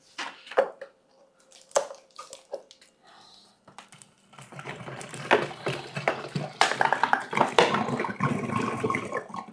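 Plastic gallon water jug handled and opened, with a few light clicks; about four seconds in, water starts pouring from the upturned jug into a large fermenter, a continuous splashing pour.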